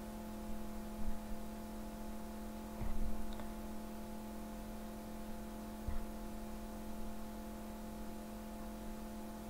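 Steady electrical hum on the recording, several fixed tones with the strongest low one, with a few faint short sounds in between.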